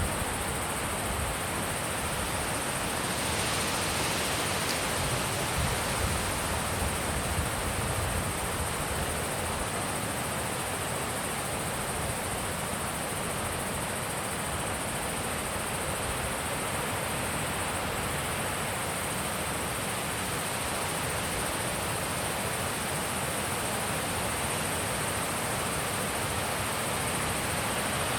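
Wind blowing steadily, an even rushing noise with a low, unsteady rumble underneath and a constant high hiss above it.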